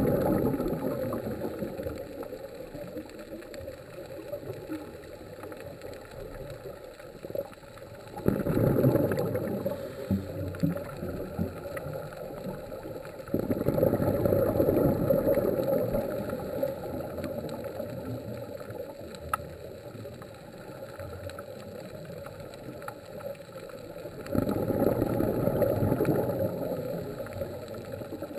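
Underwater scuba regulator breathing: the rush of exhaled bubbles comes in four swells lasting a few seconds each, over a steady underwater hiss with scattered faint clicks.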